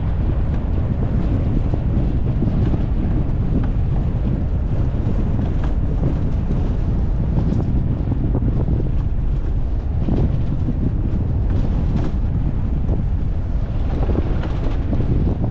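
Heavy wind rumbling over the microphone of a camera mounted outside a vehicle driving along a dirt track, a steady low roar with a few faint knocks.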